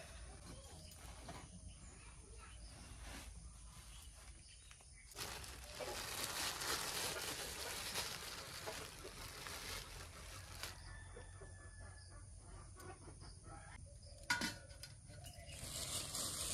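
Thin plastic bag rustling and crinkling as hands open it. The crinkling is loudest for several seconds in the middle, and a single sharp knock comes near the end.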